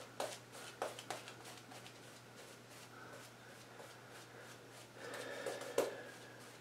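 Gillette Black Beauty adjustable double-edge safety razor scraping through lathered stubble in short strokes, a run of crackly strokes near the start and another cluster about five seconds in.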